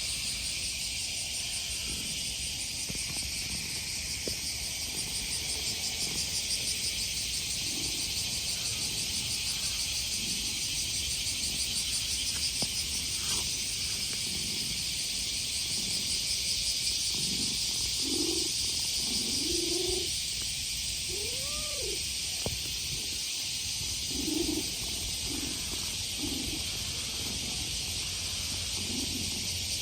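Cicadas singing in a loud, steady chorus. In the second half a cat makes a string of short, soft meows and chirps, cute calls given while it is being stroked.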